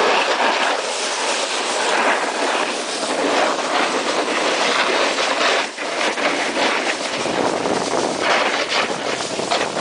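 Snowboard sliding down hard-packed groomed snow: a continuous rough scraping hiss from the board on the snow, varying in strength as the board moves, with a brief dip a little before the six-second mark.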